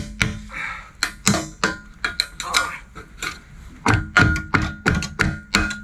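Repeated hammer blows on a steel beam (RSJ), each strike ringing metallically, about two to three a second in two flurries with a short lull near the middle.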